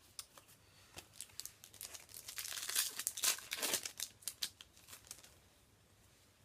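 Yu-Gi-Oh booster pack's foil wrapper being crinkled and torn open by hand: a run of sharp crackles, densest in the middle, that dies away about five seconds in.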